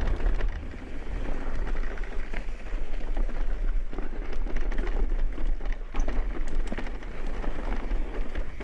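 Mountain bike descending rocky dirt singletrack: tyres rolling and crunching over dirt and rock, with frequent small knocks and rattles from the bike, under a steady low wind rumble on the microphone.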